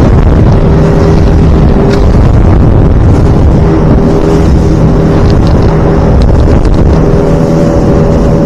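Small boat's motor running at a steady pitch as the boat moves over open water, with wind buffeting the microphone.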